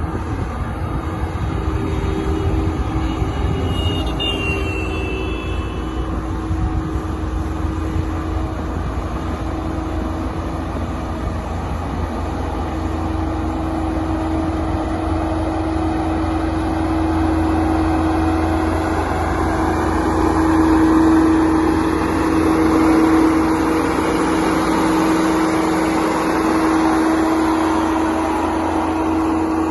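Road roller engine running steadily, a low rumble with a constant hum, growing somewhat louder past the middle.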